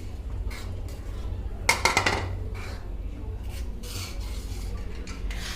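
Spoon stirring thick dal makhani in a cooking pot, scraping and clinking against the pot's sides, with a louder run of clinks about two seconds in.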